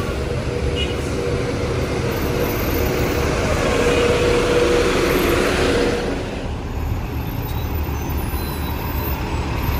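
Double-decker city bus driving past close by: a low engine rumble with a whine and a rush of noise that swell about halfway through and drop away at about six seconds.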